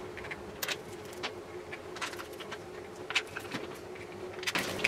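Light, irregular metallic clicks and taps of bolts and tools against a motorcycle engine's clutch cover as it is fitted and bolted on, over a faint steady hum. The handling noise gets denser near the end.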